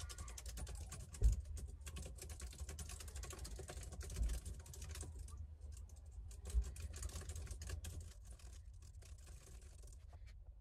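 Fast typing on a keyboard used with an iPad: quick runs of light key clicks that stop shortly before the end. A few dull thumps sound among the clicks, the strongest about a second in.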